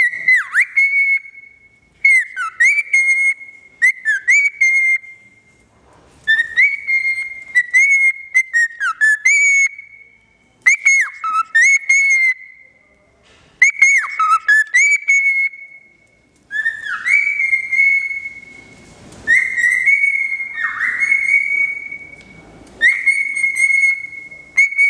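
Cockatiel whistling a tune in repeated phrases: a held high note broken by quick downward swoops and flicks back up, in bursts of one to three seconds with short pauses between them.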